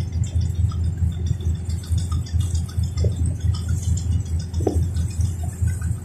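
Excursion boat's engine running steadily under way, a low drone.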